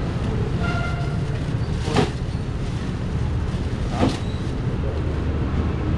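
Outdoor street-market background noise: a steady low rumble, broken by two short sharp knocks about two seconds apart.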